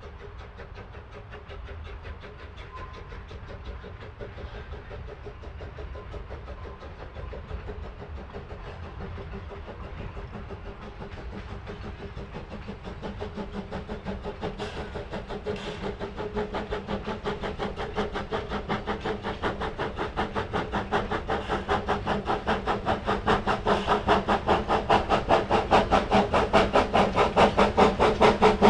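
No. 25 "Samson", a 1910 Vulcan 0-4-0 steam locomotive, approaching while working a train up a long grade. Its exhaust makes a fast, even beat that grows steadily louder as it nears, loudest near the end.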